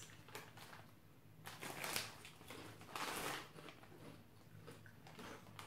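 A potato chip bag crinkling as it is handled and potato chips being crunched, in two short crackly bursts with quieter rustling between.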